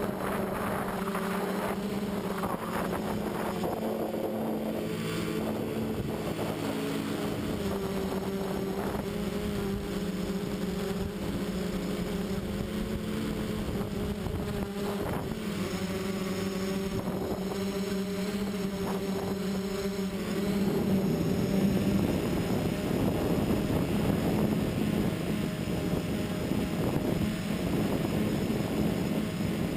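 Quadcopter's electric motors and propellers running with a steady whine, heard from a camera mounted on the frame. About twenty seconds in the sound gets louder and rougher as the copter climbs.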